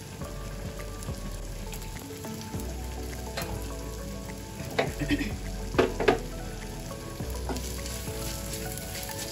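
Spices, curry leaves, green chilli and garlic sizzling in hot oil in a clay cooking pot, with several loud spurts of sizzle around the middle as sliced red onions go in. Near the end a wooden spoon stirs them.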